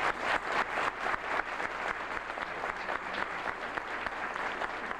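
An audience of seated guests applauding, many hands clapping together. The applause is loudest at the start and settles to a steady level after a couple of seconds.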